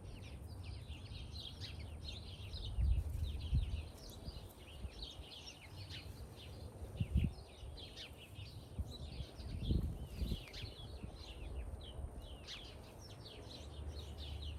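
Many small birds chirping busily and without a break, with a few dull low thumps now and then.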